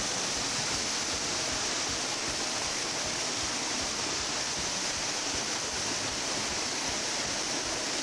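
Waterfall rushing over rock: a steady, unbroken noise of falling water.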